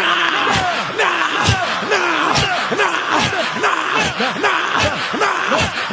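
A crowd of many voices shouting and praying aloud at once, with frequent sharp percussive hits.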